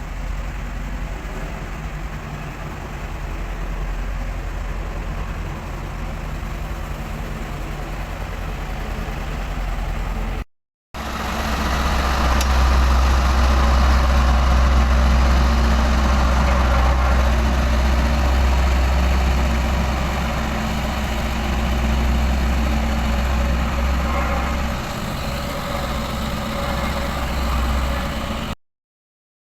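Dynapac road roller's diesel engine running steadily with a heavy low drone. It cuts out for a moment about ten seconds in and comes back louder and deeper, easing a little later on, and cuts out again near the end.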